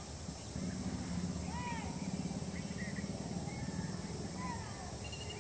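Several birds chirping, with short arched notes repeating every second or so, over a steady low rumble that grows louder about half a second in.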